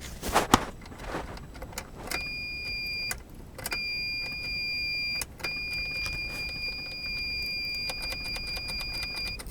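A car's electronic warning buzzer sounds a steady high tone. It breaks off twice briefly and then runs on, with light clicks from the ignition key being worked. The Geo Metro gives no starter cranking at all, only the clicks, which points to a starter or power problem.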